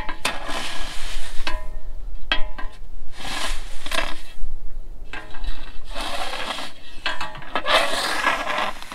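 Metal screed board dragged across a crushed-stone paver base along screed rails: a series of rasping scrapes through loose stone, about one every second, some with a ringing metal tone.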